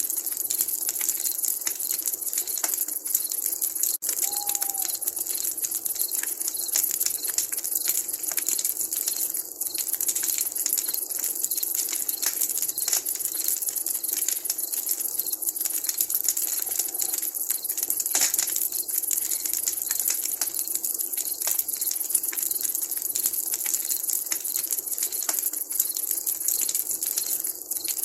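Wood campfire crackling: a dense, irregular run of sharp snaps over a steady hiss. One short note-like call sounds once, about four seconds in.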